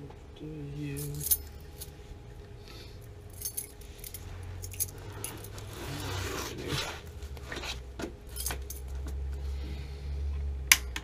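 Metallic clinking and rustling of hands working at a gas water heater's Honeywell control valve, then near the end a run of sharp clicks, about three a second: the piezo igniter being pressed to light the pilot.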